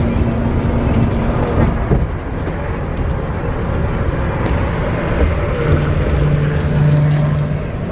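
Road vehicle noise: a steady rumble with a low engine hum that shifts in pitch, and a clearer hum in the last couple of seconds.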